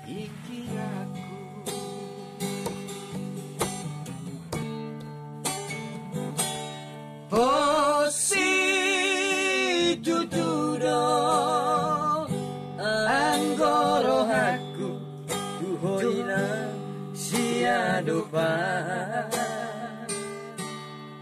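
Acoustic guitar strummed in a steady rhythm, joined about seven seconds in by a man singing a Batak song in a high voice with a wide, wavering vibrato.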